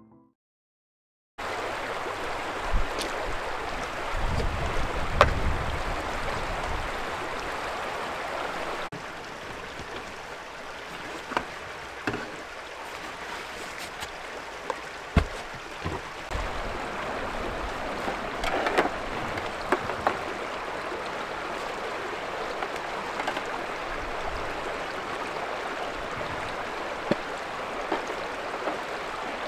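Steady rush of a shallow stream running over stones, with scattered clicks, knocks and rustles of camping gear being handled: a collapsible electric pot taken from its drawstring pouch and set on a camp table.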